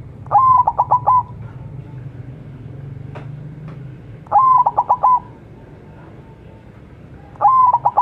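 White zebra dove (perkutut) singing its cooing song three times, about three seconds apart: each phrase is a short opening note followed by a quick rolling run of about five coos.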